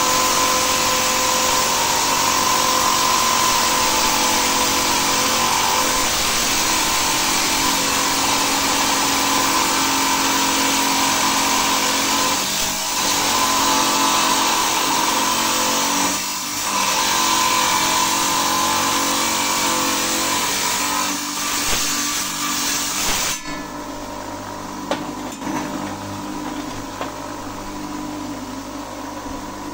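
Electric stone-cutting saw running steadily as it cuts agate, with a couple of brief dips in pitch and level. About three-quarters of the way through, the sound drops abruptly to a quieter hum with a few clicks.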